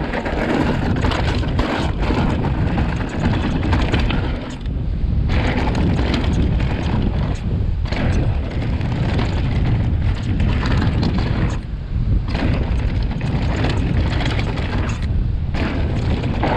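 Wind buffeting a chest-mounted action camera's microphone as a 2020 Vitus Sommet CRS mountain bike descends a loose dirt trail at speed. The tyres rumble over the ground and the bike rattles and knocks over bumps and jumps.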